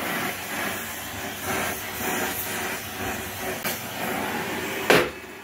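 Welding on the metal end fitting of a sailboat boom: a steady crackling hiss. Near the end, two loud metal knocks, about half a second apart.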